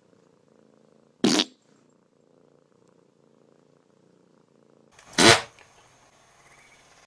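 A cat purring faintly and steadily, broken by two short, loud noisy bursts, one about a second in and a longer one about five seconds in.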